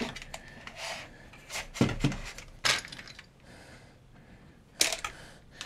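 Wire cutters snipping 16-gauge hook-up wire and being handled, with a few sharp clicks spread out, the loudest near the end.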